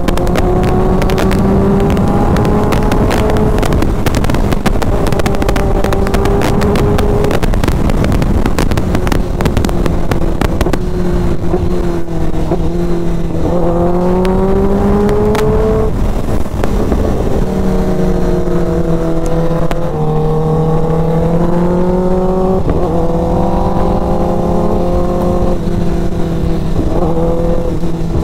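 Kawasaki ZX-10R's inline-four engine, fitted with an Austin Racing exhaust, running at highway speed, heard from the rider's seat under heavy wind rush and buffeting on the microphone. The engine note dips and climbs several times as the throttle is eased and opened again.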